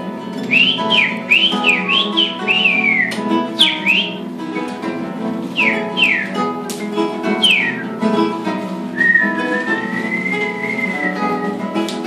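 Several acoustic guitars playing together while someone whistles bird-like calls over them: quick runs of short chirps that swoop up and down, then one long wavering whistle near the end.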